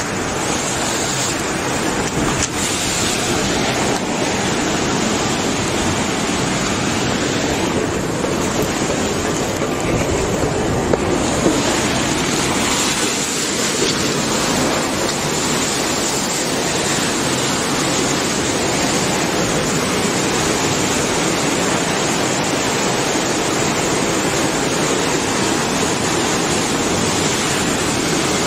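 2011 tsunami water surging and churning through a harbor and over a seawall: a loud, steady rush of water.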